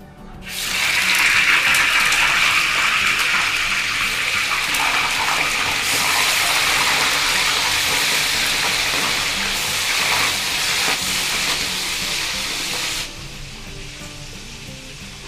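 Pieces of fish frying in hot oil in a wok, sizzling loudly from about half a second in and falling much quieter near the end.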